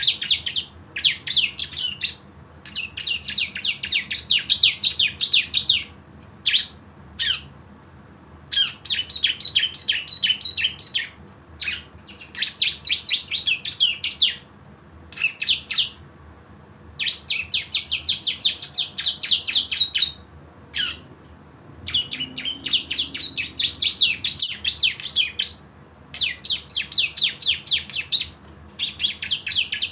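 Ciblek (a prinia) singing its 'ngebren' song: bursts of rapid, sharp, high chirps fired off like a machine gun, each lasting one to three seconds, with short pauses between them.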